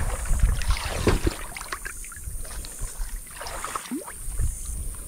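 River water splashing and sloshing irregularly, with low bumps and short knocks, as someone wades in a shallow river.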